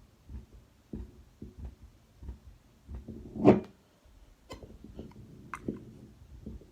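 Heartbeat heard through a Rappaport-type stethoscope after exercise: a quick run of low, dull thuds. About three and a half seconds in, a loud burst of scraping handling noise comes, then a moment of near silence, and the beats resume.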